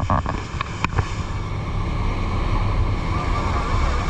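Jet boat running on open water, a steady low rumble with water rushing past the hull and wind noise on the microphone.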